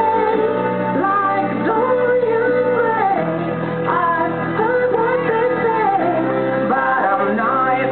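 A song playing: a sung melody that glides between held notes over steady sustained bass notes.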